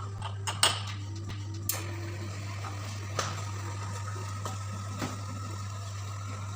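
A few light clinks and knocks of cups and utensils, the loudest about half a second in, over a steady low hum.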